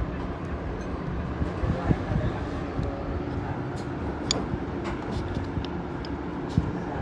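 Toyota 2NZ four-cylinder engine idling steadily, with a few scattered light clicks and taps over it.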